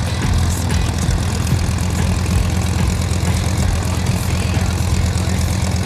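A light biplane's propeller engine running steadily as the plane taxis on grass.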